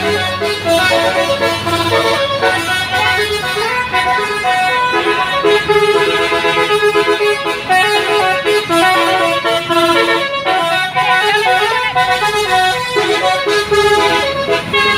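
A tourist bus's 'telolet basuri' multi-tone horn playing a melody of quick stepped notes, with the bus's engine running underneath for the first few seconds and again near the end.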